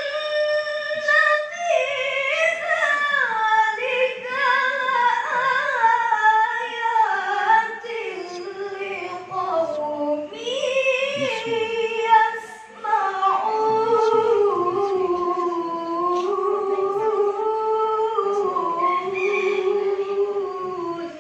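Melodic Quran recitation by a single high voice, long held notes ornamented with sliding turns between pitches, with a short breath pause about twelve seconds in.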